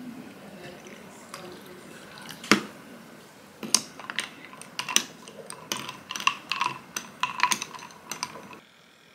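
Coffee poured over milk and ice in a glass mug, then a metal stirrer clinking against the glass and ice cubes. There is one sharp clink about two and a half seconds in, then quick irregular clinks with a short ringing tone from about three and a half to eight seconds.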